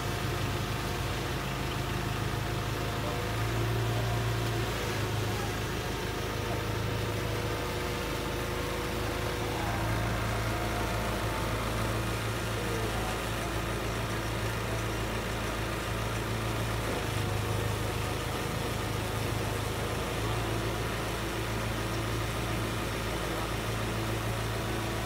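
Engine of a fork-equipped lifting machine running at idle while it holds a load, a steady low hum that swells and eases several times.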